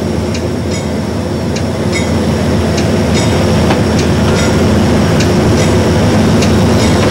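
Train running along the track: a steady rumble with the clack of wheels over rail joints about twice a second, growing slightly louder.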